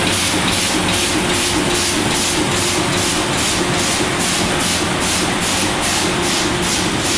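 MAN Roland 706 LV six-colour sheet-fed offset printing press running in production: a steady mechanical hum with a rhythmic hiss pulsing about two and a half times a second as the sheets cycle through.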